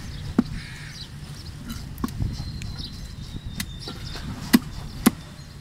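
Large knife chopping through fish onto a round wooden chopping block: about seven sharp strikes at uneven intervals, the loudest two about half a second apart near the end, over a steady low background noise.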